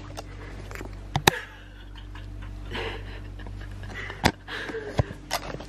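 Handling noise from a phone held while filming: a few sharp knocks and soft rustles over a low steady hum.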